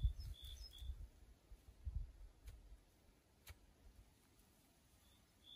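Quiet outdoor ambience: a few short, high bird chirps in the first second, a low rumble that dies away after about two seconds, and a couple of faint clicks.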